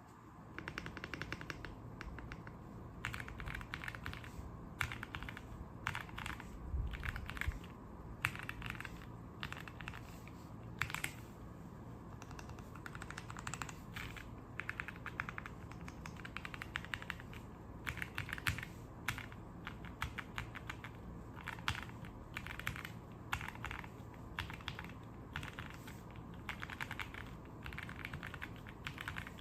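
Typing on a mechanical keyboard fitted with Gateron Milky Yellow Pro linear switches: quick, irregular runs of keystroke clacks with brief pauses between them.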